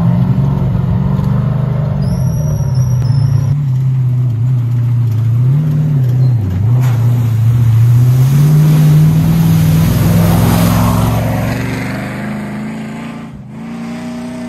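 V8 Toyota Landcruiser race truck's engine revving hard off-road, its pitch repeatedly rising and falling as the throttle is worked, then fading near the end as it drives away.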